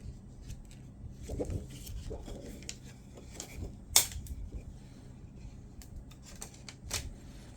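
Screen-protector film and monitor being handled: scattered small clicks and light rustles of the plastic, with one sharper click about four seconds in and another near the end.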